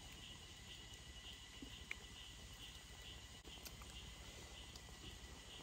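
Faint insects chirping in a steady pulsing rhythm, about two chirps a second, over a thin steady high whine.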